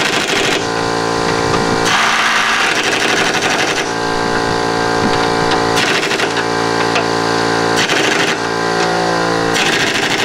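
Socket wrench ratcheting in repeated bursts of a second or two, fast fine clicking, as the 12 mm nuts on a Subaru front strut's top mount are run down. A steady machine hum runs underneath.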